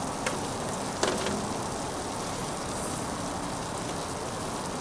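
Beef patties and buttered rye bread sizzling on a flat-top griddle, a steady crackling hiss, with a couple of light taps near the start, the sharper one about a second in.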